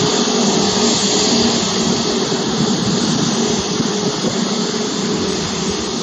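Steady jet turbine whine and rumble from a parked Airbus A320neo airliner, with a few constant hum tones under a broad rushing noise.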